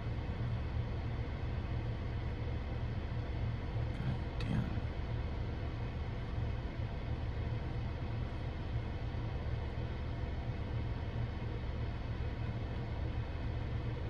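Steady low rumble of a car heard from inside its cabin, the engine idling with the ventilation running.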